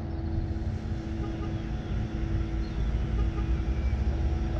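A vehicle engine running steadily at idle: a low rumble with a steady hum.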